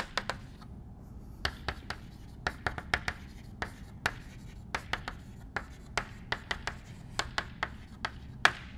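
Chalk writing on a blackboard: an irregular run of short, sharp taps and scrapes as letters are formed, several a second.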